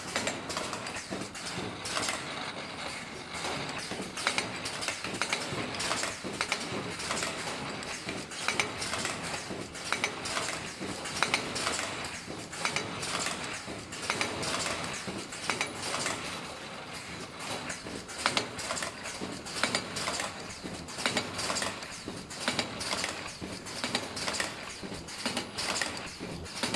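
Automatic ultrasonic face mask machine running: a dense, irregular clatter of mechanical clicks and knocks that goes on without a break.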